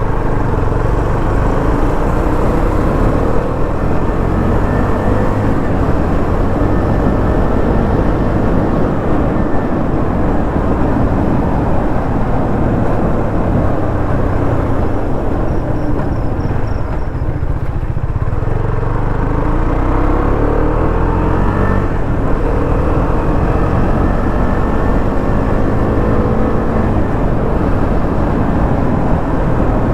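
KTM motorcycle engine running through its stock exhaust, a steady low note whose pitch rises and falls with the revs.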